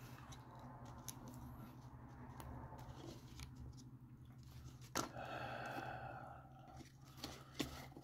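Quiet eating sounds of spoonfuls of Greek yogurt: a spoon clicking against the yogurt cup a few times, with a scrape of about a second and a half around the middle.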